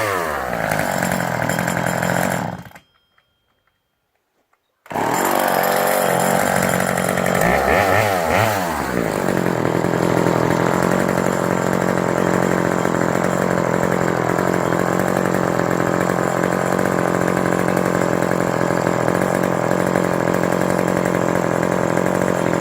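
McCulloch 5-10 two-stroke chainsaw engine running and being revved. About three seconds in it drops away to near silence for roughly two seconds and comes back abruptly. It is revved up and down again, then settles into steady running.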